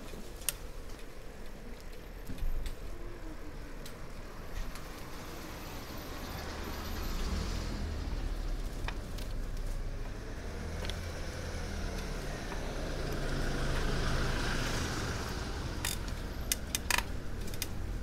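Street traffic: a steady low rumble with vehicles swelling past twice, the second louder, and a few sharp clicks near the end.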